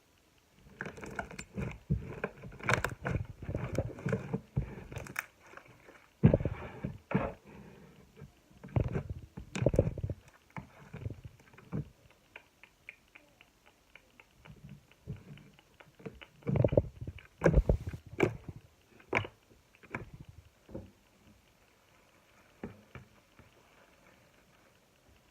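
Slime being squished and pressed by hand: irregular clusters of sticky clicks and pops, with quieter pauses between the handfuls.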